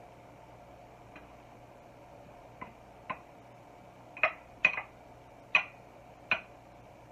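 A spoon clicking against a small ceramic bowl while stirring cooked rice into saffron water: a few faint taps, then four sharper clicks in the second half.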